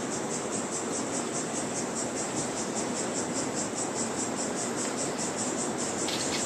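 An insect chirping in a steady, even rhythm of about five high-pitched pulses a second, over a steady background hiss.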